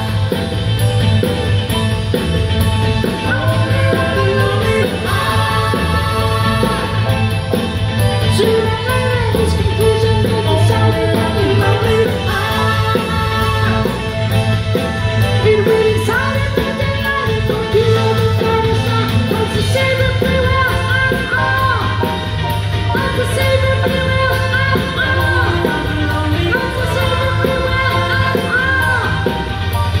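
Live rock band playing a song through a PA: lead vocals sung over electric guitar, bass, keyboards and drums, heard from the audience.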